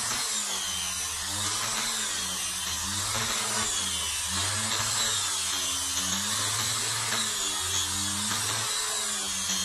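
Corded angle grinder fitted with a sanding pad, running steadily while sanding a wooden panel. The motor's whine repeatedly dips and recovers in pitch.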